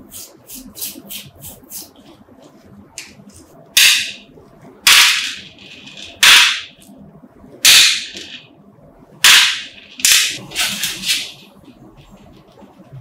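A few quick toothbrush scrubbing strokes, then about seven short, loud hissing blasts from a pressurised nozzle, each starting sharply and fading within about half a second, roughly one every second or so.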